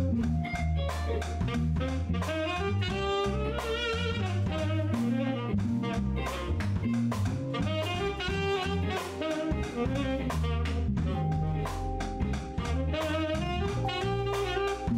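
Live jazz band playing: a saxophone carries the melody over a drum kit with frequent cymbal strokes, an electric bass line and keyboard.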